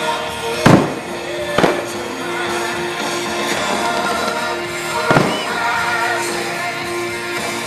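Aerial firework shells bursting over music: three sharp booms, the loudest about a second in, another a second later, and a third about two-thirds of the way through.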